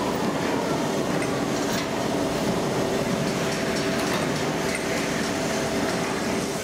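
Foundry sand dispenser running steadily with a constant machine hum, as resin-bonded molding sand pours from its chute into a steel molding flask.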